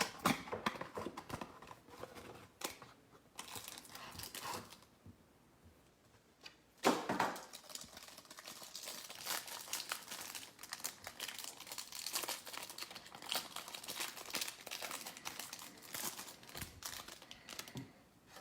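Plastic wrapper of a trading card pack being torn open and crinkled, a dense run of crackling and rustling with a louder tear about seven seconds in.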